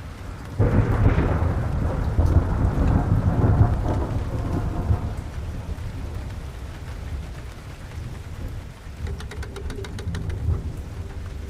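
Thunder breaking suddenly about half a second in and rumbling deeply for several seconds as it fades, over steady rain. A quick run of faint ticks comes near the end.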